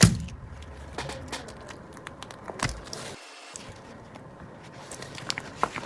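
Squishy toy being handled and squeezed: scattered soft crackles and clicks, with one sharp knock at the very start.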